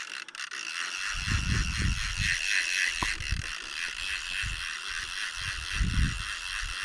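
Magnum 101 centre-pin reel's ratchet clicking rapidly and steadily as line runs while a hooked carp is played, with irregular low bumps underneath.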